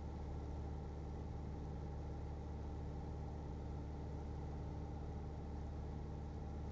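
Piper PA-28's piston engine and propeller droning steadily in cruise, heard inside the cabin.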